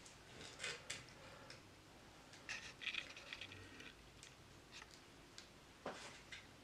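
Plastic cable tie being threaded and pulled through a bracket: faint scratching and light clicks, busiest about halfway through, with a sharper click near the end.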